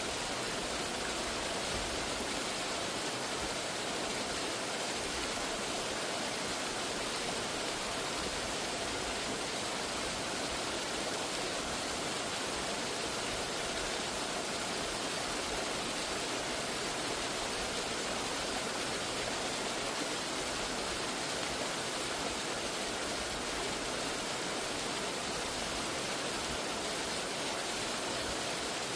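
Waterfall rushing steadily, an even hiss of falling water that stays unchanged throughout.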